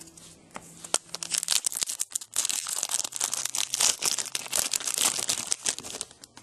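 A trading card pack's wrapper being torn open and crinkled by hand: a dense crackling from about a second in, loudest through the middle and dying away near the end.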